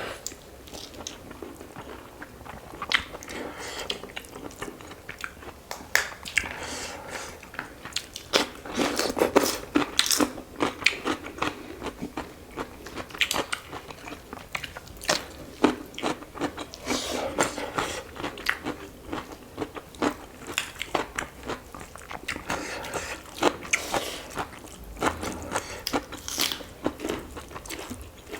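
Close-miked eating: chewing and crunching through a meal of chicken curry with rice, with a dense, irregular run of wet mouth clicks and crisp bites.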